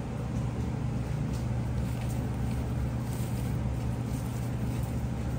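A steady low hum or rumble of machinery, with faint rustling of dry corn husks as ears of sweet corn are picked up and handled.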